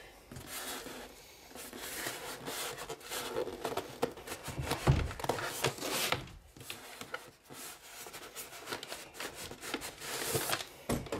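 Packing being handled inside a cardboard TV box: styrofoam blocks and thin foam wrap rub, scrape and rustle against the cardboard in an irregular run of noises. There is a louder knock about five seconds in.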